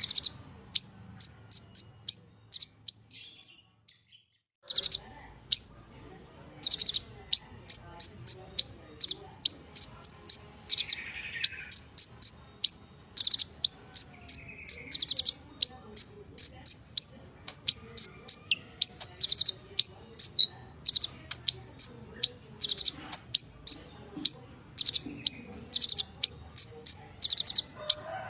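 Purple-throated sunbird singing a fast, loud string of short, high chirps that each drop in pitch, mixed with harsher buzzy notes. The song breaks off briefly a few seconds in, then runs on without pause.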